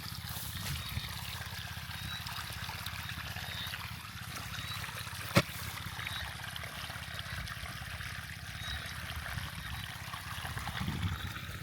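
Water pumped from a pond pouring and trickling steadily into a rice paddy, with a steady low hum beneath. A single sharp click about five seconds in.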